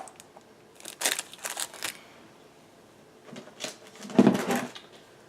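Craft papers and packaging being handled on a table: short rustles and crinkles, with a louder knock or thud about four seconds in.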